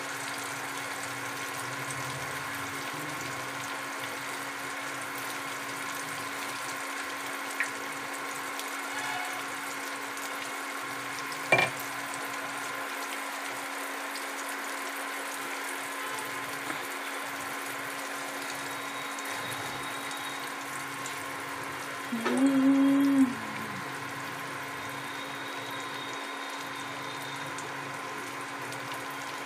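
Hot oil sizzling steadily around karayappam (unniyappam) batter frying in a multi-well appam pan, over a steady low hum. A sharp click comes about twelve seconds in, and a louder short pitched tone lasting about a second and a half comes around twenty-two seconds in.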